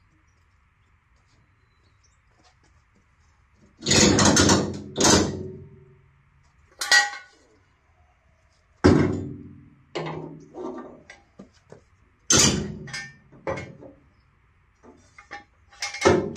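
Irregular metal clanks and knocks from the steel chassis pan and its stand being handled, each ringing briefly; the first comes about four seconds in, then about ten more follow at uneven gaps.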